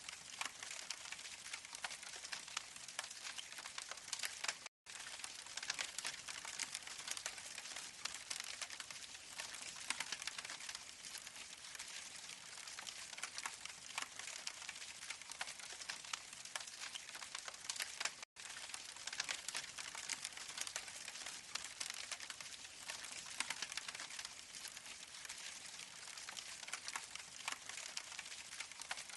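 Recorded campfire crackle played back from the artificial fireplace's sound module through its small speaker: a steady bed of dense, fine crackles and pops. The sound cuts out completely twice for an instant, about five and eighteen seconds in, as the looping track restarts.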